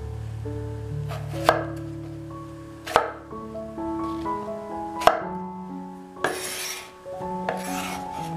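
Cleaver chopping small Thai eggplants on a wooden cutting board: three sharp knife strikes about a second and a half apart, then two short scrapes as the blade slides across the board to scoop up the pieces. Background music plays throughout.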